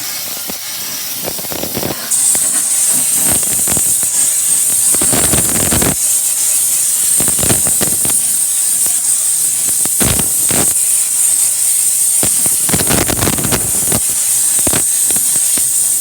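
Handheld steam cleaner blowing steam through a nylon brush attachment onto grill grates: a steady, loud hiss that comes on strongly about two seconds in, broken by repeated short scrubbing knocks of the brush against the grates.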